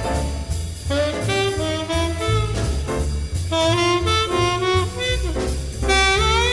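Swing jazz instrumental break: a saxophone solo over a walking bass and drums.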